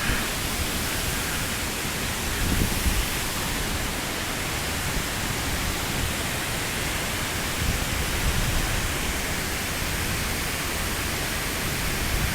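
Steady rushing of a tall waterfall, water falling about 50 metres into a plunge pool.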